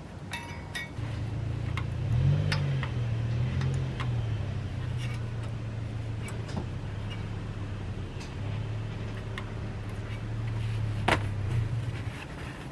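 Light metallic clicks and taps as steel brake-pad hardware clips are pressed onto a caliper bracket, the sharpest one near the end. Under them runs a steady low hum that wavers in pitch early on.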